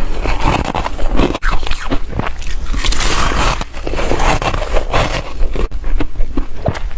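Close-up crunching of shaved ice chunks being bitten and chewed, a dense run of sharp crackles and crunches.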